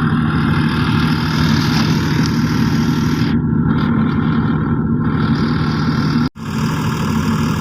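Loud steady low hum of running electrical machinery, with a brief dropout about six seconds in.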